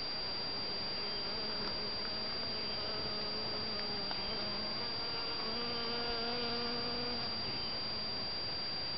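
Honeybee wings buzzing in flight, coming in about a second in, rising slightly in pitch and loudest around six seconds in, then fading out near the end.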